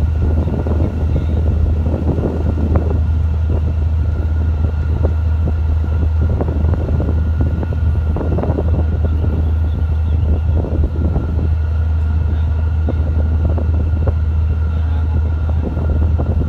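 Boat diesel engine running steadily with a constant low drone.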